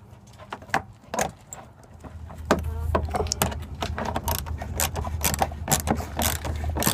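Rapid, irregular metallic clicks and clinks of hand tools and hardware while a bolt at the bottom of a car's fender cover is worked. A steady low hum joins about two and a half seconds in.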